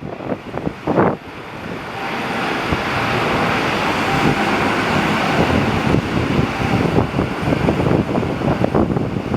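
Jet airliner engines running, a steady noise that builds about a second and a half in and then holds. Strong wind buffets the microphone, loudest at the start.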